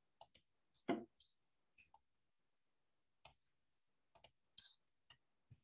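Faint scattered clicks and taps, about a dozen short ones with a slightly fuller knock about a second in, with dead silence between them, as from handling at a computer during a video call.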